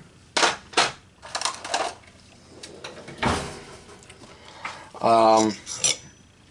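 Handling noises: a few short scrapes and rustles in the first two seconds and a knock about three seconds in, followed by a brief wordless voice sound about five seconds in.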